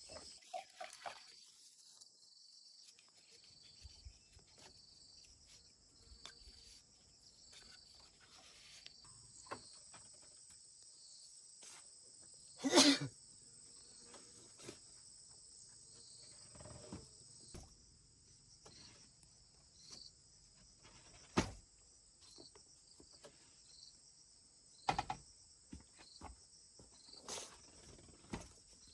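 Steady high-pitched insect chorus chirring in a regular pulse, with scattered short knocks and clicks; the loudest knock comes about halfway through.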